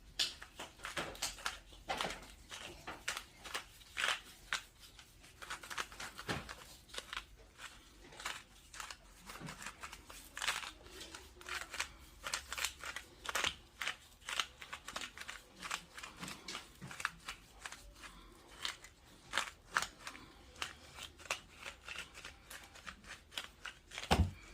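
Himalayan salt being put onto raw chicken wings from its container: irregular crunchy clicks and rustles, several a second, with a thump near the end.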